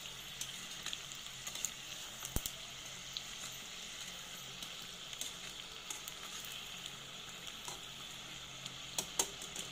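Shrimp wontons deep-frying in hot oil in a small saucepan: a steady sizzle. Metal tongs turning them click sharply against the pot now and then, with a quick run of clicks near the end.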